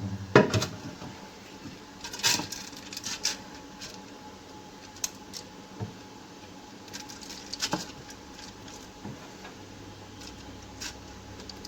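Steamed vermicelli being put back by hand into a metal couscoussier steamer basket: scattered light pattering and soft knocks of noodles and hands against the pot, over a faint steady tone.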